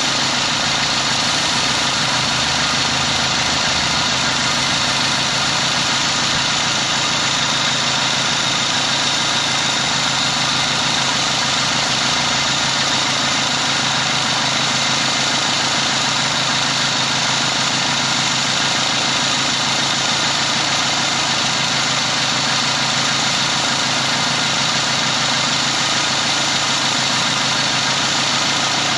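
2000 Dodge Neon's four-cylinder engine idling steadily, heard up close in the open engine bay.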